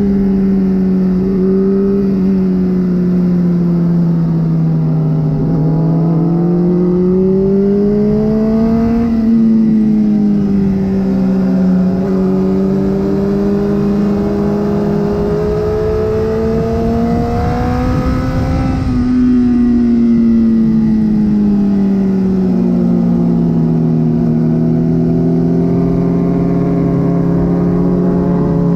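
Honda CBR600RR sport bike's inline-four engine running hard on a race track, its note climbing and dropping in pitch in long sweeps as the rider accelerates and backs off through corners.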